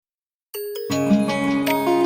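Background music starting about half a second in: a bell-like opening note, then a light instrumental tune with chiming mallet-percussion tones.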